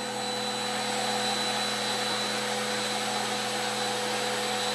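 Snapmaker 2.0 3D printer running as it homes its X, Y and Z axes after a print is started: a steady whirring hum with a thin steady whine over it. It comes on right at the start and holds even.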